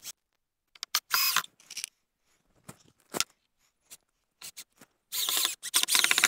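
Cordless drill driving pocket-hole screws into wooden wall framing in short bursts: a brief run about a second in and a longer run with a fast rattle near the end, with a few knocks from handling the tool and wood between.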